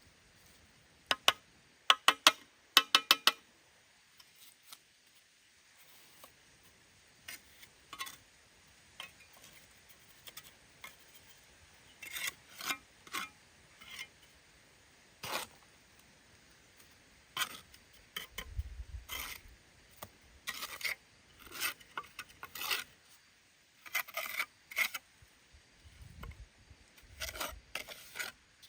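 Intermittent rasping and scraping strokes on a hard surface, with a quick run of sharp clicks about a second in.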